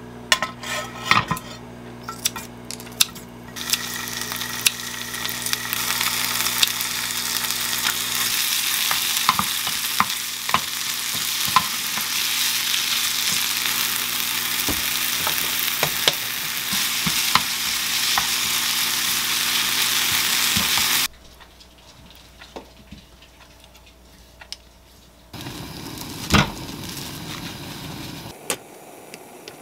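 Chopped kimchi frying in oil in a square nonstick pan on a gas stove, a steady sizzle dotted with the taps and scrapes of a wooden spoon stirring it. The sizzle builds a few seconds in and cuts off abruptly about two-thirds of the way through, leaving quieter handling sounds and a single knock.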